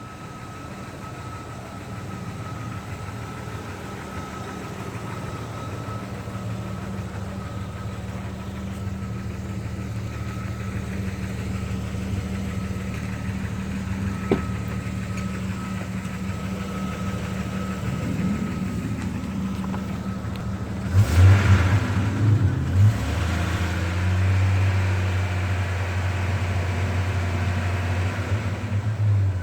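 Car engine idling, then blipped a couple of times about two-thirds through and held at raised revs. Its noise is one the owner, with new rod bearings just installed, cannot place as lifter tick or rod knock.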